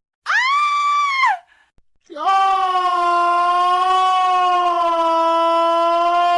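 Angry cartoon character screams: a short yell of about a second that rises, holds and drops off, then after a short pause one long, steady held scream.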